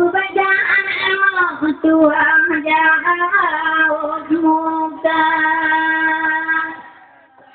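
A woman's voice singing a slow, melismatic chant with gliding pitch and long held notes. The singing stops about seven seconds in.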